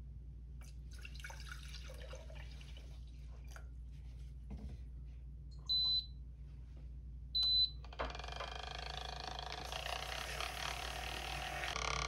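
Light handling clicks, then two short high beeps from the Seven & Me coffee maker's control panel. About eight seconds in, the machine starts running with a steady whirr and a rush of liquid as it brews coffee and froths milk.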